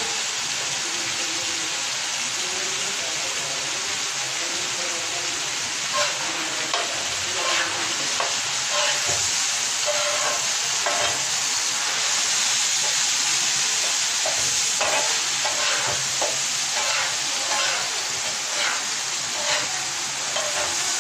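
Boneless chicken pieces sizzling in oil on a hot tawa griddle, with a spatula scraping and knocking against the tawa as the pieces are stirred. The scrapes and knocks come more often from about six seconds in.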